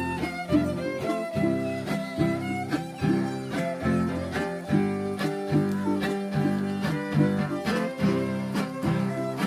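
String music: a violin plays the melody over steadily strummed guitars.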